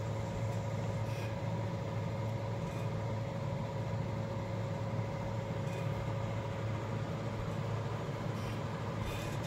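Steady low machine hum with a thin steady whine above it, and a few faint ticks.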